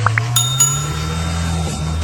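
A bell-like ding that starts about a third of a second in and keeps ringing, over a steady low hum.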